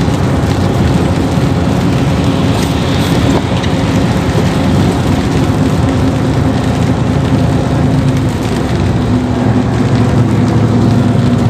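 Truck engine running steadily at highway speed, with the hiss of tyres on a rain-soaked road and rain, heard inside the cab.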